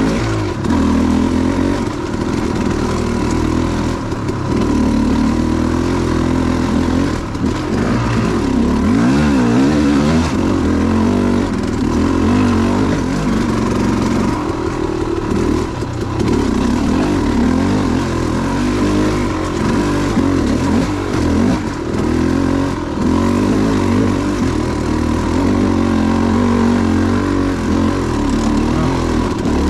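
KTM 300 two-stroke dirt bike engine running under way, its revs rising and falling with the throttle.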